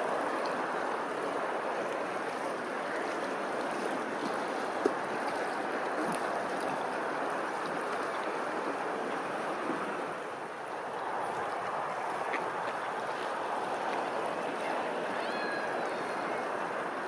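Steady rushing of running water, with a single sharp click about five seconds in and a faint high chirp near the end.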